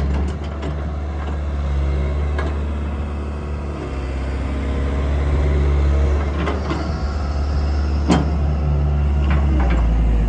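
CAT 312CL excavator's diesel engine running steadily with a deep hum, with a few sharp knocks from the machine now and then.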